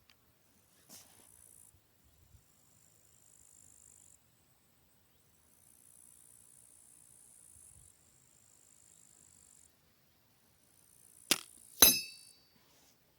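A .22 CO2 air rifle (Artemis CP2) firing: a sharp click, then about half a second later a louder crack with a short metallic ring. A faint high hiss comes and goes before the shot.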